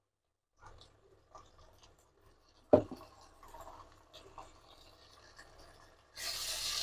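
A wooden spatula working in an aluminium pot: faint scrapes and clicks, then one sharp knock about three seconds in. Near the end comes a steady hiss as ginger-garlic paste is stirred into onions and greens frying in oil.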